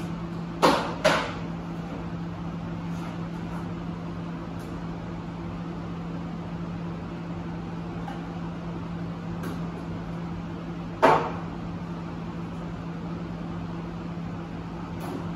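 Knocks and clatter from handling things in a plastic storage box: two close together near the start and a louder one later, over a steady low hum.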